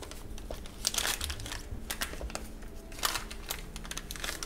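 Small paper sachet crinkling in several short bursts as it is handled and tipped out over a mixing bowl.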